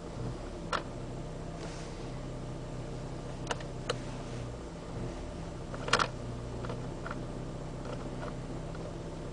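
Peugeot 307 engine idling steadily, with irregular sharp clicks over the hum, the loudest about six seconds in.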